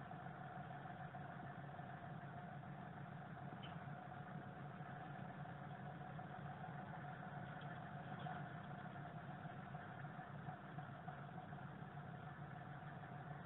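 Diesel train standing at the platform with its engine idling: a faint, steady low hum with a constant thin whine over it.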